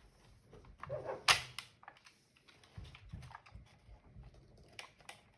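Hard plastic clicking and knocking as the parts of a robot vacuum's housing are handled and clipped together, with one sharp click about a second in and lighter taps after it.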